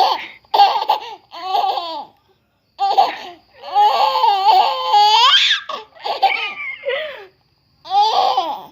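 High-pitched laughter in a run of separate bursts, one stretching into a rising squeal about five seconds in.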